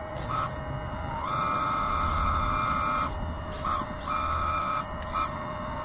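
Whine of a small electric motor driving a homemade RC bulldozer's hydraulic system, cutting in and out repeatedly in short spells over a low rumble.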